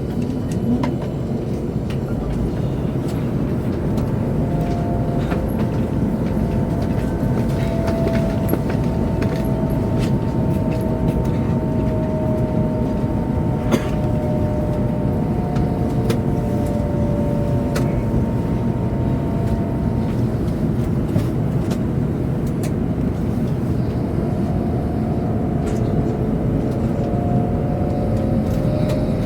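Chinese high-speed bullet train running at speed, heard inside the passenger cabin: a steady low rumble with faint wavering whine tones and a few light clicks, the sharpest about 14 seconds in.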